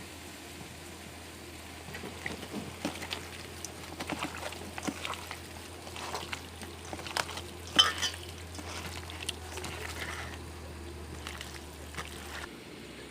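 Hands mixing raw goat meat with wet spice pastes and oil in a bowl: irregular squelching with small clicks and knocks, over a steady low hum that stops near the end.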